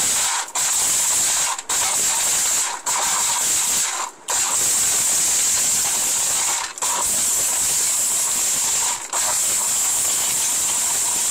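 Orpat blender with a stainless-steel jar grinding whole dried turmeric roots: the motor runs at full speed with a loud, even whir, broken by about six short stops as it is pulsed on and off.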